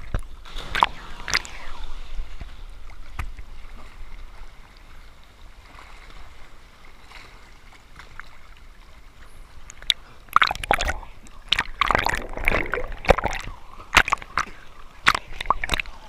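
Sea water sloshing and splashing close by as a swimmer moves through it. Softer sloshing through the middle, then a run of sharp splashes from about ten seconds in.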